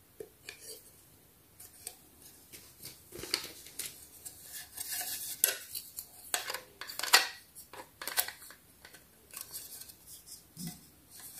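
Small hard plastic Sylvanian Families fence pieces clicking, tapping and scraping as they are handled and pushed into slots in a plastic base, in irregular clicks with the loudest about five and a half and seven seconds in.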